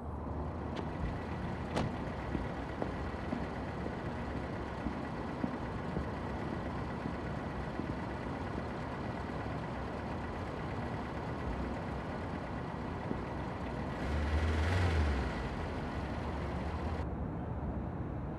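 City street ambience at night: a steady hum of traffic noise, with a louder low rumble swelling for about a second and a half around fourteen seconds in.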